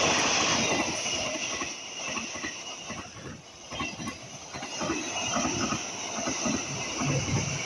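Passenger train carriages passing close at speed, the wheels knocking rapidly on the rails over a steady high hiss from the track.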